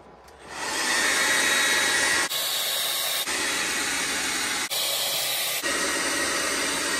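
Handheld hot-air gun blowing steadily, a rushing hiss that comes on about half a second in. It shifts abruptly twice along the way, as if cut. The hot air is aimed at a battery's BMS heat sink to test for an over-temperature charge cutoff.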